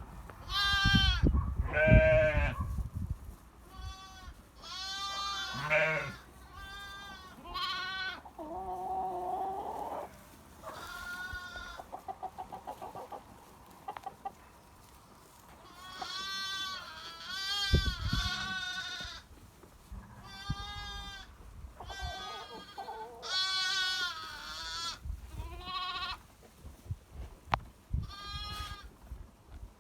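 A run of goat bleats, about fifteen wavering, quavering calls one after another with short pauses between them.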